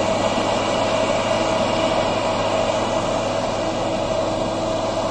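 Heavy machinery engine running steadily: an even drone with a constant hum.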